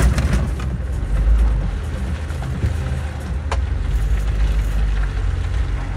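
Vehicle driving slowly over a bumpy, rutted mud track: a steady low rumble of engine and tyres, with a rush of noise right at the start and a sharp knock about three and a half seconds in as it goes over the ruts.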